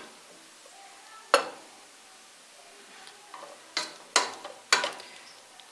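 Plastic spatula stirring and tossing macaroni in a non-stick pan over a faint sizzle, with sharp knocks of the spatula against the pan once about a second and a half in and three times in quick succession later on.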